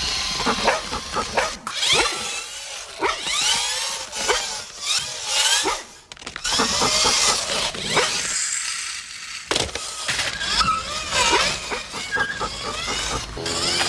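Sound effects of RC, the remote-control toy car from Toy Story: a small electric motor whirring in a string of short clips, its pitch sweeping up and down as it revs, with abrupt cuts between the clips.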